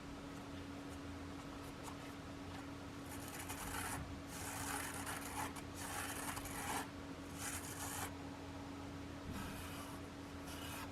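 Several short spells of rubbing and scraping, a few seconds in and again near the end, over a faint steady hum.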